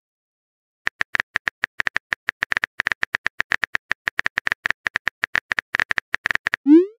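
Typing sound effect: a quick, uneven run of short keyboard clicks, several a second, starting about a second in. It ends with a short rising swoosh like a message-sent sound.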